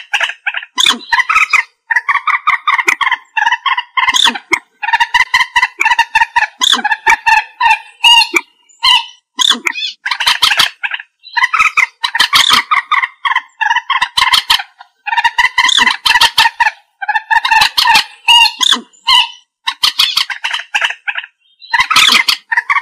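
Common moorhen calling: rapid runs of short clucking calls lasting a second or two each, separated by brief pauses.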